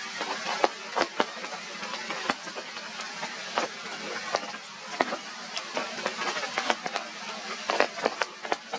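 Heavy rain falling, a steady hiss with irregular sharp taps of drops striking nearby surfaces.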